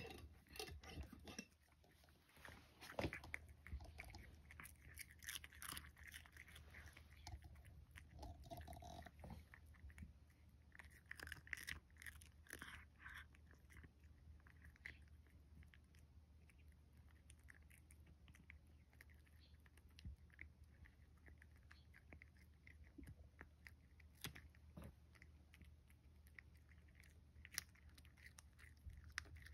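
A cat chewing and crunching a dried sardine (niboshi): faint, irregular crunches.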